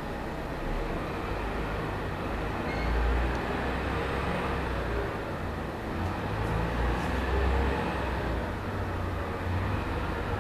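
Fireworks booming and rumbling, heaviest about three seconds in and again around seven seconds, over steady background noise.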